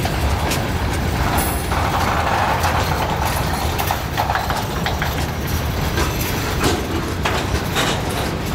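Freight train of covered hopper cars rolling past at low speed: a steady low rumble, with the irregular clack of wheels over rail joints. A brighter squeal-like noise from the wheels rises from about a second and a half in and fades by about four and a half seconds.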